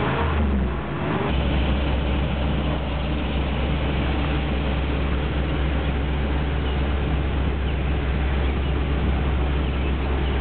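1976 Chevrolet Corvette Stingray's 350 V8 briefly revving, then dropping to a steady idle about a second in.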